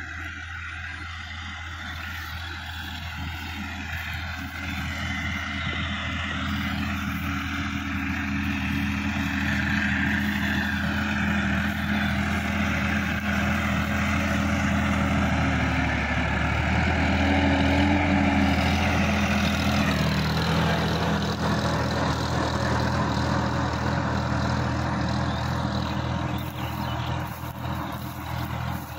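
Sonalika DI-50 RX tractor's diesel engine running steadily under load while tilling a stubble field, growing louder as it approaches and passes close, with the engine pitch dropping about two-thirds of the way through, then a little quieter as it moves away.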